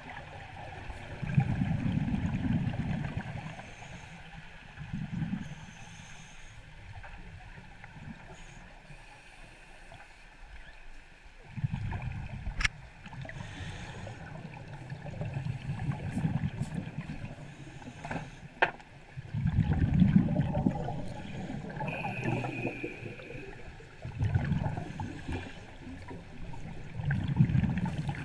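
A scuba diver's regulator breathing heard underwater: a low bubbling rush of exhaled air every few seconds, each lasting a second or two, with a couple of sharp clicks in between.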